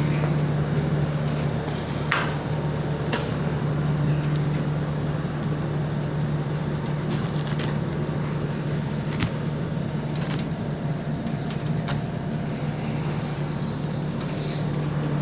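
Engine of a farm machine running steadily at a constant speed, with a few short, sharp clanks scattered through.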